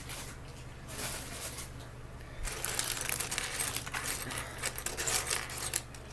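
Plastic LEGO parts bag crinkling as it is handled and opened, then, from about two and a half seconds in, a dense run of small plastic LEGO pieces clicking and clattering together with more crinkling.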